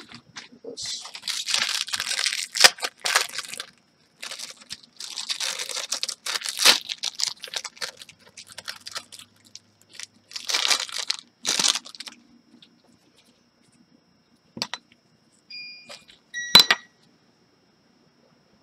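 Three bursts of crinkling and rustling, like plastic or tape being handled, each a second or more long. Near the end come a few short high beeps and a sharp click.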